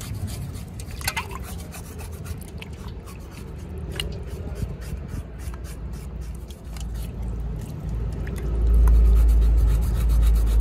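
Knife blade scraping the skin of a slab of seared pork belly held over a basin of water, in quick repeated rasping strokes. A low rumble comes in about eight seconds in and becomes the loudest sound.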